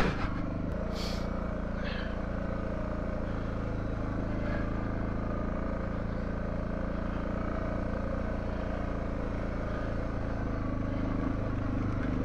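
Suzuki DR650's single-cylinder four-stroke engine running at a steady speed as the motorcycle is ridden along a dirt track, with one sharp knock at the very start.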